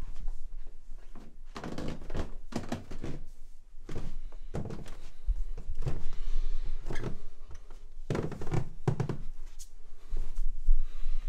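Footsteps going down a flight of stairs and into a hallway: a run of dull thuds, irregularly spaced about half a second to a second apart.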